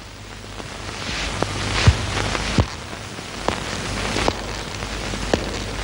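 Slow footsteps on a hard floor, a sharp step about every second, over a steady hiss.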